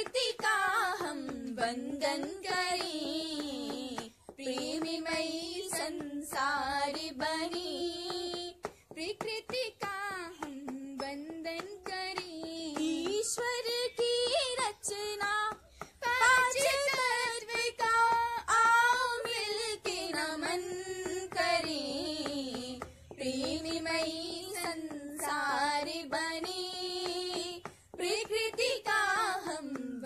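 A young girl singing a slow melody on her own, in long phrases with vibrato and brief breaths between them.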